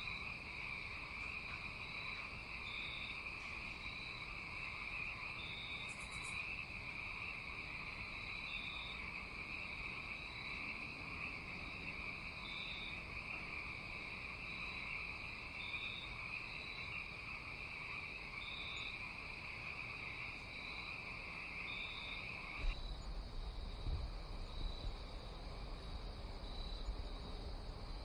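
Night insect chorus: a steady high trill with short, higher chirps every second or two. About 23 seconds in the trill stops suddenly and a low rumble comes in beneath the remaining chirps.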